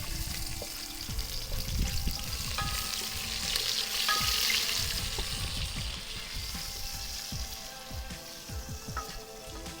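Onions frying in hot cooking oil in a pan: a sizzle that swells about three seconds in and eases off after five, with short knocks of stirring against the pan.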